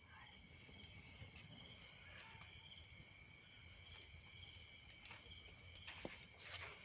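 Faint, steady chirring of insects in several even high tones, with a few faint clicks in the second half.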